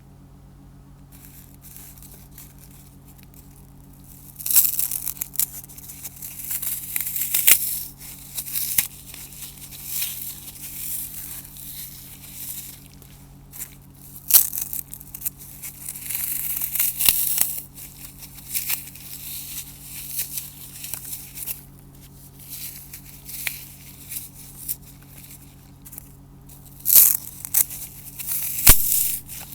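Dry floral foam, scored into a grid, being crushed: irregular bursts of crisp crunching and crumbling that start about four seconds in, with a few sharper, louder snaps near the end.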